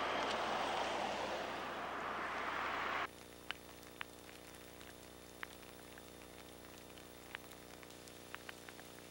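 Sleet or freezing precipitation: a steady hiss that cuts off abruptly about three seconds in, followed by scattered light ticks of pellets landing over a low hum.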